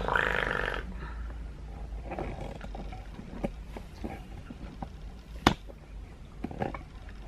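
A person makes a short growling vocal sound in the first second. After it comes a low steady hum with scattered faint clicks and knocks, and one sharp click about five and a half seconds in.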